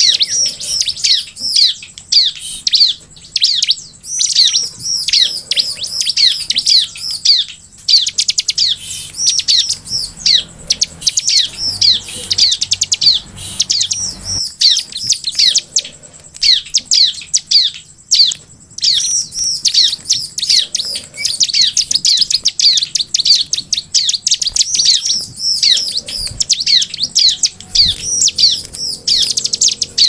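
Bar-winged prinia (ciblek) singing: long, fast runs of sharp, high, downward-sweeping chirps, several a second, broken by brief pauses.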